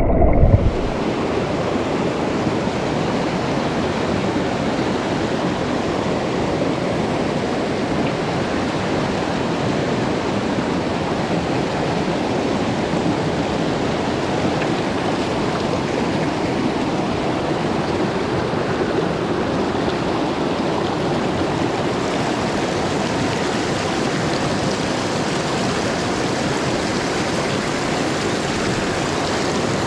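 A small mountain stream rushing over rocks, a steady wash of water. Under a second in, it replaces a brief muffled underwater rush.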